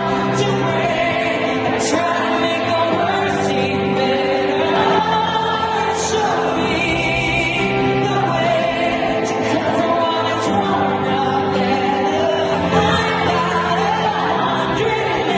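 Live arena performance of a pop ballad: a female lead vocal over piano, sung in long held notes, with the crowd singing along, heard from among the audience.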